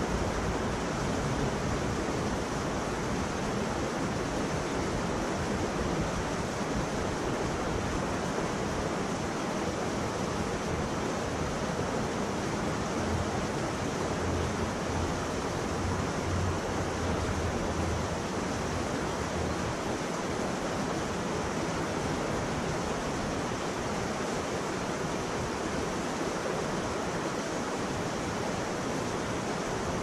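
Steady rushing of river water flowing over shallow rapids and a low weir.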